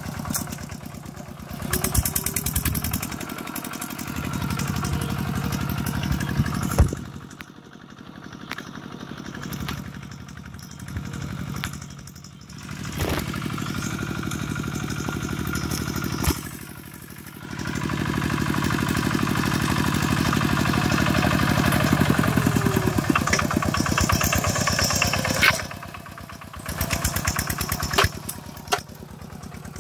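Kubota two-wheel walking tractor's single-cylinder diesel engine chugging while it pulls a plough through wet paddy soil. The engine level falls away for several seconds about a quarter of the way in, and twice more briefly later on.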